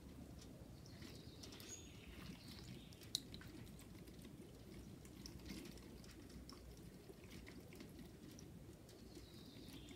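Faint trickling and dripping of Coca-Cola running off a tilted aluminium litho plate back into a plastic bottle, with one small click about three seconds in.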